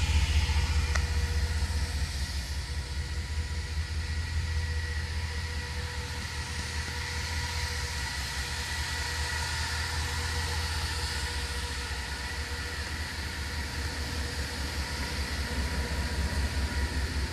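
Parked emergency vehicle's engine idling: a steady low rumble with a faint steady whine over it, easing a little over the first couple of seconds.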